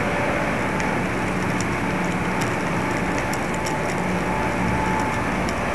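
Steady rushing noise with a faint hum and scattered light ticks, picked up by a cheap mini-camcorder's microphone as it hangs in the open air.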